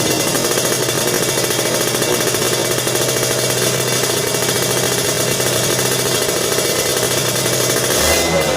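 Kawasaki Ninja 150 R/RR two-stroke single-cylinder engine running through a racing exhaust, a loud, steady, rattling sound with a brief change in pitch near the end.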